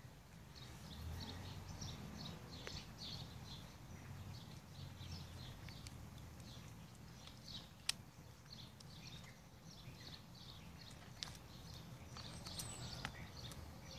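Ferrets pawing and dipping into water in a plastic basin, with soft splashes and a few sharp clicks, while small birds chirp repeatedly in the background.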